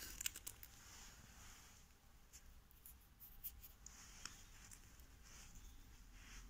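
Near silence broken by a few faint, scattered ticks and rustles of hands handling the pot and phone close to the microphone.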